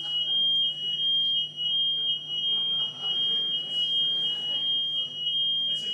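A steady high-pitched whine, one strong tone with a fainter, wavering tone just below it, sounding without a break over a low hum.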